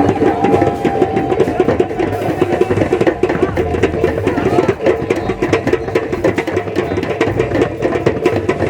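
Live music driven by fast, dense drumming, with a held melodic note over it for the first second or so.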